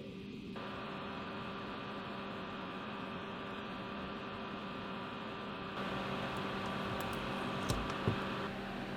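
Steady electrical mains hum over a low noise floor, with two small sharp clicks about a second before the end.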